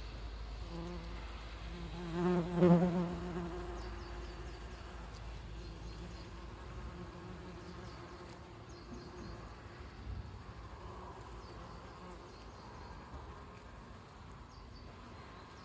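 Yellow jacket wasps buzzing. One flies close by about two to three seconds in, its wing buzz swelling loud and then fading, and a fainter buzz from the feeding wasps carries on after.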